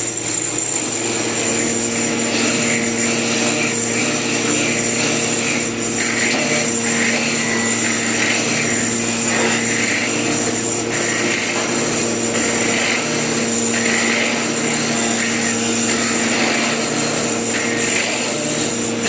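A woodworking machine's motor running steadily, with a higher-pitched sound that comes and goes every second or so as wood is cut.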